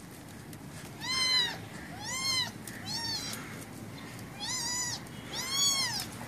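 Angry kitten meowing five times in quick succession, each high call rising then falling in pitch, starting about a second in.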